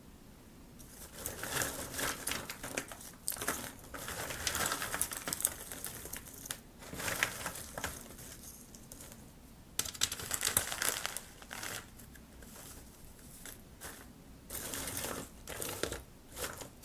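Dry pine bark chunks rustling and lightly clattering as a hand stirs and picks through them in a clear plastic tray, in irregular bursts with short pauses.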